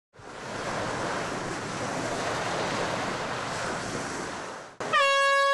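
Ocean surf washing steadily, fading in at the start and cutting off shortly before the end. It gives way to a loud held musical tone with many overtones, the start of the music.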